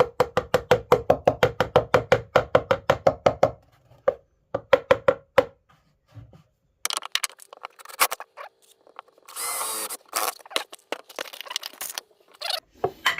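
Hammer rapidly tapping on wood, about seven even knocks a second, to drive in pieces that plug screw holes; two shorter runs of taps follow, then scattered knocks and a brief scraping hiss near the end.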